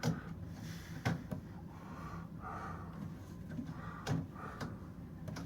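Whirlpool Duet Sport front-load washer sitting just after its cycle was cancelled: a faint steady low hum with a few sharp clicks and knocks, about a second in and again about four seconds in.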